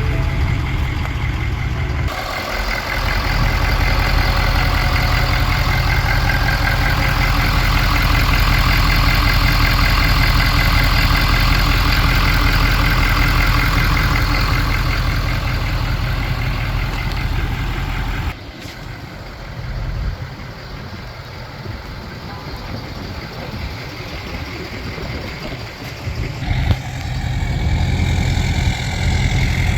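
The 6.7-litre Power Stroke V8 diesel engine of a 2019 Ford F-250 running at idle. It is loud and harsh at first, drops suddenly to a quieter level a little past halfway, and grows louder again near the end.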